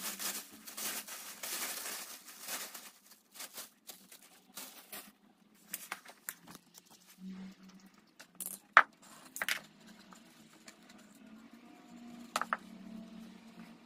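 Fabric and leftover fibres being torn and scraped off a cat scratching post by hand: a dense rasping at first, then scattered short scratches and a few sharp clicks.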